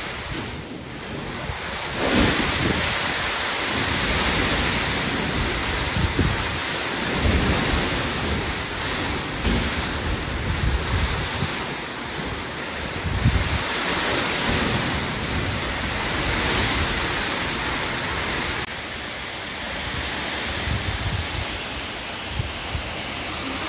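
Heavy cyclone rain pouring down, with strong gusting wind that buffets the microphone. About 19 s in the sound cuts abruptly to a softer, steadier rushing noise.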